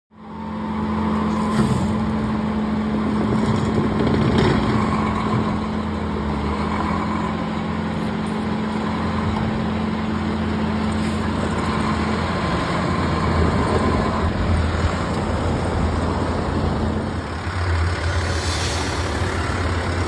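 Heavy truck's diesel engine running steadily, with a steady tone in its hum that stops a few seconds before the end. A short hiss comes near the end.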